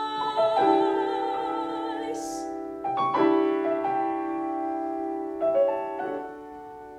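A female classical singer holds a note with vibrato over piano accompaniment, and her voice ends about two seconds in. The piano then plays a few chords alone, which ring on and fade away as the song closes.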